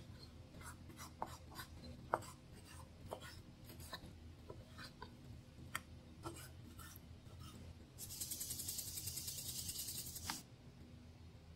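Chef's knife slicing raw chicken breast on a wooden cutting board: scattered light taps and clicks of the blade against the board. About eight seconds in, salt is dispensed from a small container over the cubed chicken for a couple of seconds, a steady rasping hiss that is the loudest sound and stops abruptly.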